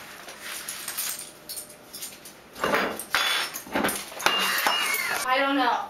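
Light clinks and clatter of things being handled on a kitchen counter, growing louder about halfway through, then a high voice with a quickly wavering pitch near the end.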